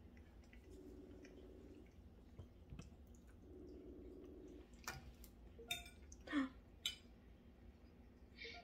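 Faint ringing tone of an outgoing smartphone video call, coming on for about a second twice with a pause of about two seconds between. A few sharp clinks follow a little after halfway, with a short falling squeak among them.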